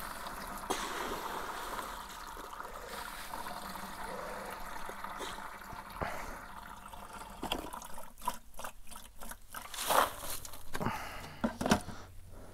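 Wet, worm-tea-soaked biochar being scooped out with a metal scoop, with water trickling and dripping from it. Later comes a run of clicks and knocks, two of them loud near the end, as a fine mesh sieve is set on the bucket.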